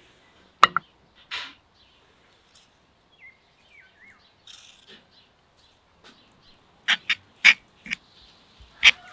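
Metal spoon clinking and tapping against a ceramic bowl and small clay spice dishes as spices are spooned in: a sharp clink about half a second in, then a run of quick, loud clinks in the last two seconds. A few faint bird chirps in between.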